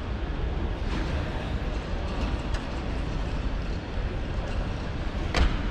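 Steady background noise of a large exhibition hall: a low rumble and hiss, with a few faint ticks and one brief louder sound near the end.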